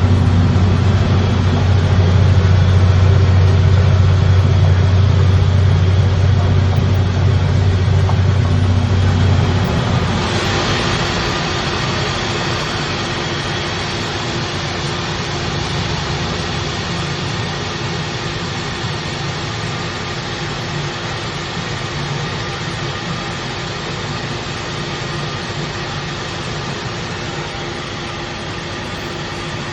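Coin-operated rice milling machine running as it mills brown rice into white rice: a loud, steady mechanical hum. About ten seconds in the deep hum drops away and a hissier, even running noise carries on.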